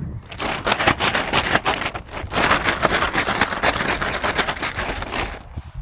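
Close, rough rustling and crackling of brush and undergrowth as someone pushes through dense cover on foot. The noise is rapid and irregular and dies away near the end.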